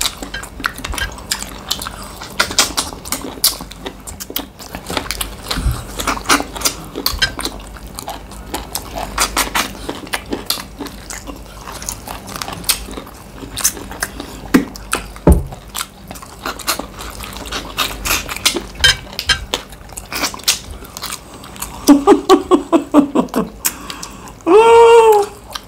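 People eating fast: chewing, lip smacking and small knocks of food and dishes. Near the end comes a short burst of laughter, then a brief hummed vocal sound.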